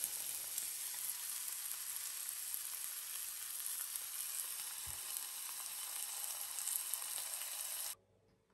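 Kipper fillets frying in butter in a frying pan: a steady sizzle that cuts off suddenly near the end.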